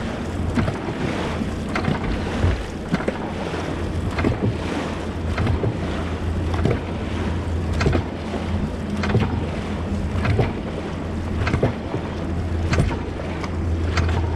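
Dragon boat paddles dug into the water in unison by a racing crew, a sharp stroke about every 0.6 seconds over a steady rush of water and wind noise on the microphone.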